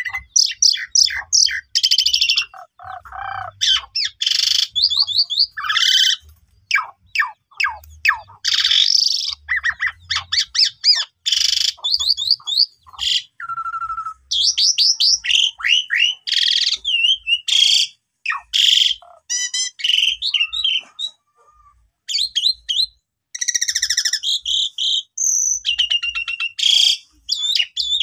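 Pied starling (jalak suren) singing a long, varied song: rapid strings of sliding whistles and chatter mixed with harsh squawks, with a short pause about three quarters of the way through.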